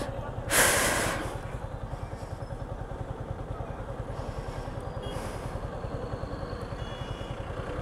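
Yamaha R15 V4's single-cylinder engine idling with an even, quick pulse, about nine beats a second. A short burst of hiss comes about half a second in.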